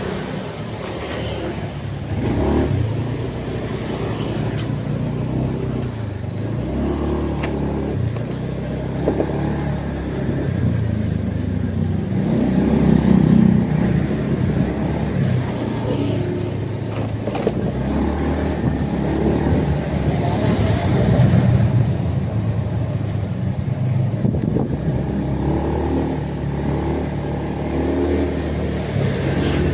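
A motor vehicle's engine running, its pitch rising and falling as it speeds up and slows down.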